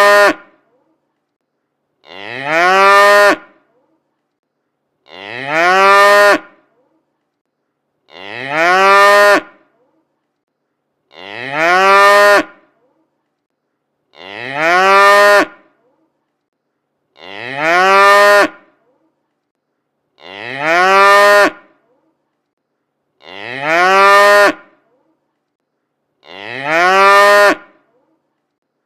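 A cow mooing over and over, about every three seconds, each moo the same: a call of about a second and a half that rises at the start and then holds, with silence between calls, like a single moo looped.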